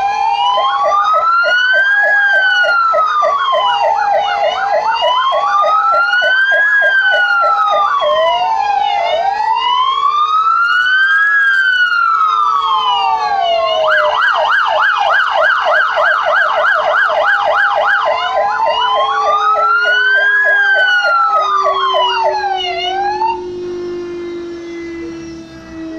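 Several fire-engine sirens sounding together: slow wails rising and falling every few seconds, mixed with fast yelps and a two-tone hi-lo pattern. Under them runs a steady lower siren tone that begins slowly dropping in pitch about two-thirds of the way in, winding down. The fire-engine sirens cut off near the end.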